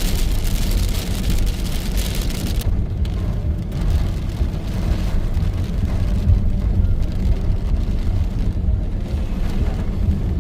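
Car driving in the rain: a steady low rumble of road and engine under a hiss of rain and tyre spray, the hiss stronger for the first two to three seconds.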